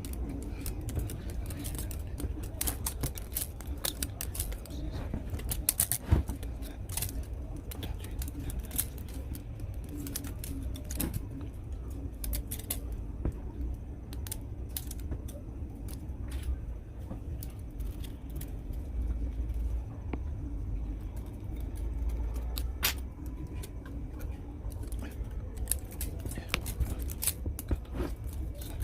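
Irregular light clicks and snips of small tools and parts being handled, over a steady low hum.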